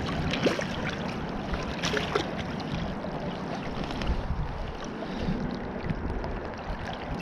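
Steady rush of a shallow river's current around a landing net held in the water, with a few brief splashes and knocks as a trout is handled in the net and lifted out.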